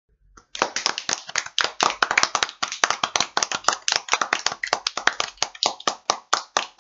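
Hands clapping in a rapid, uneven patter, roughly eight claps a second, starting about half a second in.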